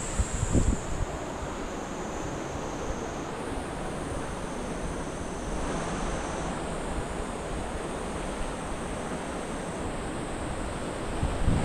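Steady rush of flowing water, with a few brief low thumps of wind on the microphone just after the start and again near the end.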